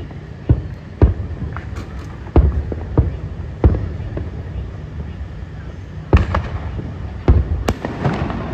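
Aerial fireworks shells bursting: about eight sharp booms at uneven intervals, with crackling near the end.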